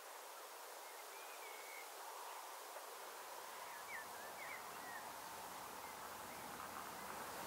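Faint countryside ambience: small birds chirping now and then over a steady hiss, with a low rumble coming in about three seconds in.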